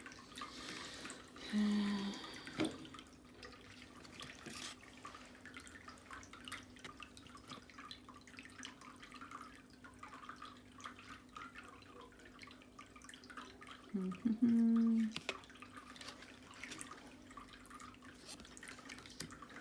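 Tarot cards being handled and turned over, many small soft clicks and taps of card stock, over a steady low hum. Two short pitched sounds stand out, about two seconds in and again near fifteen seconds.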